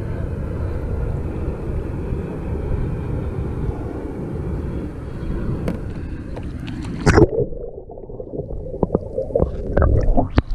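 Low rumble of wind and water on the microphone, then a loud splash about seven seconds in as the kayak rolls. After it the sound turns muffled and gurgling, with several knocks and smaller splashes near the end.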